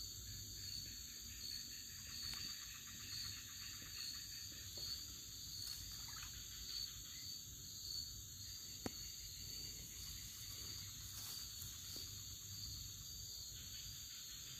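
Steady insect chorus, several high-pitched buzzing bands held without a break, over a faint low rumble, with a couple of soft clicks.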